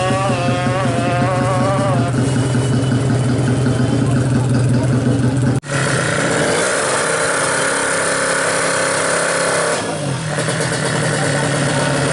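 Kawasaki Ninja-based 350cc drag-racing motorcycle engine running steadily, then, after a sudden break about halfway through, held at higher revs for a few seconds before dropping back briefly about ten seconds in.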